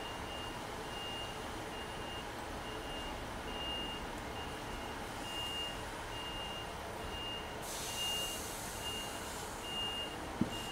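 Electronic warning beeper sounding a steady, evenly spaced high beep about twice a second. A hiss joins about three-quarters of the way through, and there is a single sharp click near the end.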